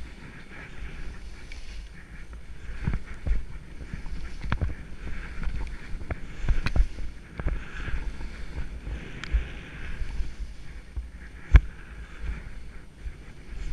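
Skis sliding over snow with a hiss that swells and fades, wind rumbling on the camera microphone, and scattered sharp knocks, the loudest near the end.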